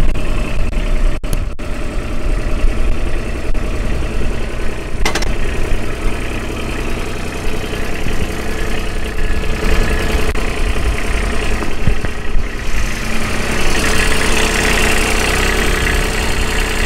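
Kubota RTV900's three-cylinder diesel engine idling steadily in neutral. It grows louder and brighter in the last few seconds, with a single click about five seconds in.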